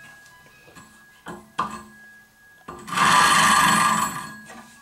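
Steel bowl gouge rubbing against a CBN grinding wheel while held in a sharpening jig, a test of where the marker-blackened bevel meets the wheel. A few light handling clicks come first, then about three seconds in a scraping hiss sets in suddenly, lasts over a second and fades out.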